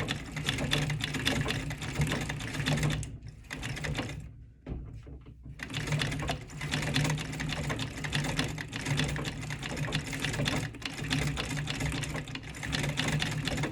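Early-1900s National brand treadle sewing machine with a vibrating shuttle, stitching with a rapid clatter of needle and shuttle strokes. It stops briefly about three and a half seconds in, then starts stitching again about two seconds later.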